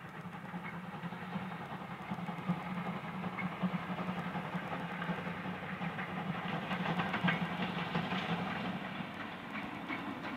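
Steam locomotive with its train passing at a distance, wheels clicking over the rail joints and growing louder to about eight seconds in, then easing off. A steady low hum runs underneath.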